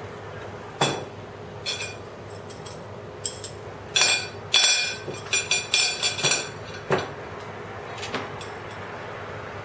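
Eating utensils clinking and knocking against a ceramic plate: a single knock about a second in, a quick run of ringing clinks in the middle, and a couple more knocks near the end.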